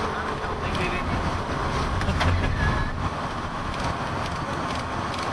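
Steady rumble and hiss of a moving vehicle, heard from inside, with a few faint clicks and a brief swell in the low rumble about two seconds in.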